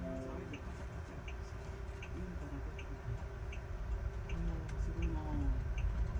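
Turn signal of a driverless self-driving bus ticking steadily, about one and a half ticks a second, as the bus turns a corner. A low rumble of the bus running over the road lies underneath.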